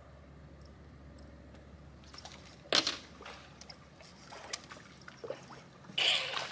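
Water splashing and sloshing as a hooked panfish is fought at the surface beside a boat, with two loud sudden bursts, one about three seconds in and one near the end.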